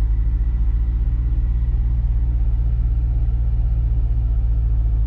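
Steady low rumble of an idling car engine, holding an even pitch and level throughout.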